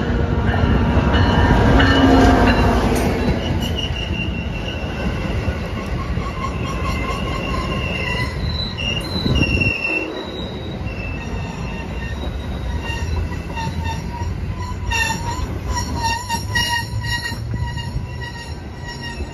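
A diesel-hauled commuter train pulls into the station. The locomotive passes loudest about two seconds in, then the stainless bilevel cars roll by with the wheels and brakes squealing as the train slows.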